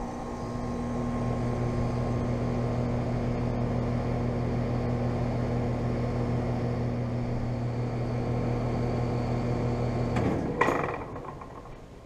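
Carrier Comfort Series central air conditioner condensing units running with a steady compressor hum and fan noise. About ten seconds in the hum cuts off, a single clunk follows, and the sound dies away as the units shut down.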